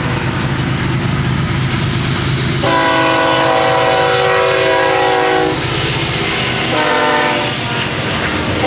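Florida East Coast Railway freight train's lead diesel locomotive sounding its multi-note air horn as it passes: a long blast of about three seconds starting between two and three seconds in, then a short toot about seven seconds in. Under it, the steady rumble of the locomotives and the clickety-clack of the railcars rolling by.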